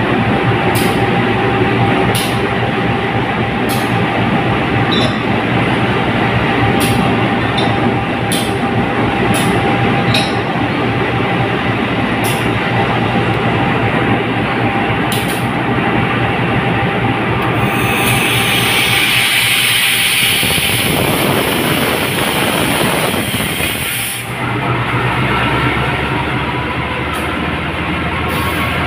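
Idling diesel locomotive close by, a loud, steady rumble and hum, with scattered sharp clicks during the first two-thirds. About 18 seconds in, a strong hiss begins and lasts some six seconds. After it the low engine hum comes through more clearly.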